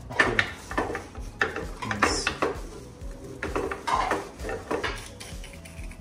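Kitchen clatter: irregular knocks and clinks of utensils and a metal rolling pin against the countertop as pie dough is rolled out.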